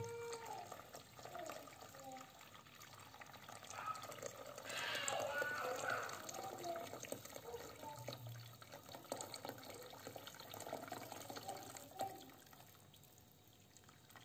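Hot water poured in a steady stream from a kettle into a stainless steel pot of dried fava beans and split peas, splashing as the pot fills; the splashing is loudest about four to six seconds in.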